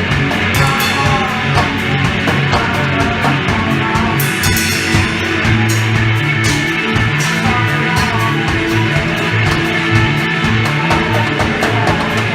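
A rock band playing live, with guitar over a steady, driving beat.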